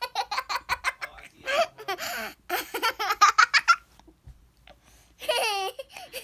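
A young child laughing in quick pulsed bursts, loudest about three seconds in. After a short quiet, a drawn-out vocal sound follows about five seconds in.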